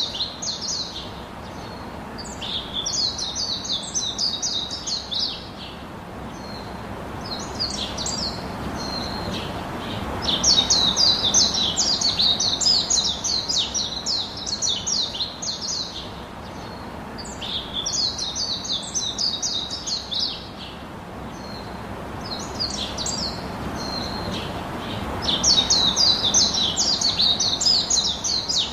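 Birds chirping in bouts of rapid, high chirps a few seconds long with short gaps between them, over a soft background hiss; the pattern of bouts repeats about every 15 seconds.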